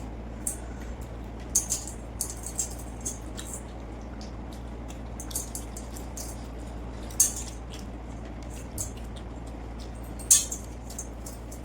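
Close-miked eating sounds: scattered short crisp clicks and crunches from fried food and the plate, the loudest about seven and ten seconds in, over a steady low hum.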